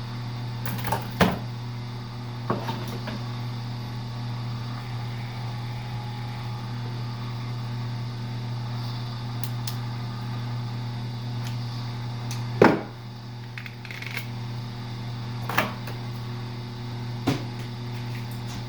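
Co-Z electric wire stripping machine's motor running with a steady hum, with a few sharp knocks and clacks as wire is handled and fed. The loudest knock comes about two-thirds of the way through.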